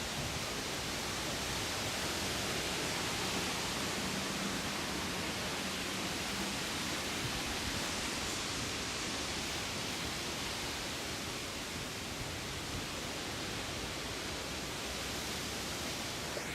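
Steady, even hiss with no distinct events, and a faint low hum for a few seconds near the start.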